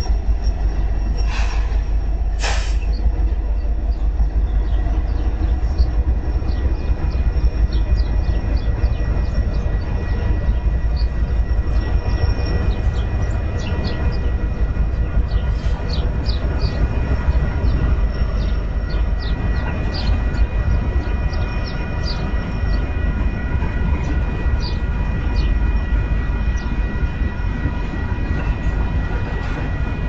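Union Pacific intermodal freight train rolling past, with a steady low rumble of wheels on rail and many scattered squeaks and clicks. Two short, sharp screeches come near the start.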